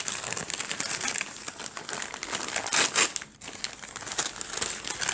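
Packaging crinkling and rustling as it is handled, a dense run of crackles that swells loudest about three seconds in and drops briefly right after.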